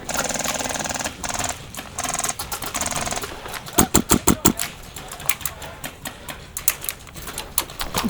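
Airsoft electric guns firing full-auto: three rapid rattling bursts in the first three seconds. These are followed about four seconds in by a quick string of about five sharp shots, then scattered single shots.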